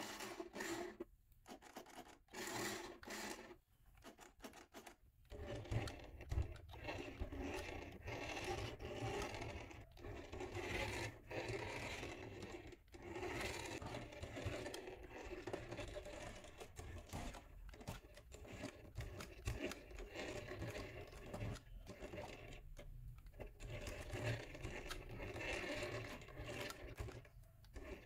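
Hands handling a plastic remote-control toy tour bus and its controller on a tabletop: irregular scraping, rubbing and light knocking of plastic, more continuous after the first few seconds.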